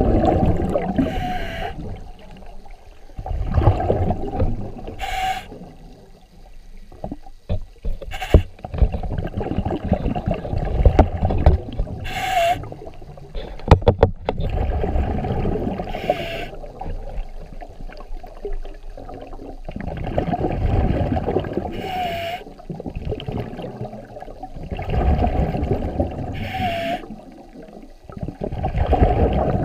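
Water rushing and sloshing against an underwater camera as it moves through shallow water, swelling and fading every few seconds. A short, sharp chirp cuts through about every four seconds.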